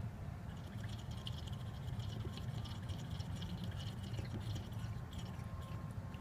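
New motor oil being poured from a bottle through a funnel into the engine's oil filler, a steady trickling pour that stops about five seconds in, over a low steady rumble.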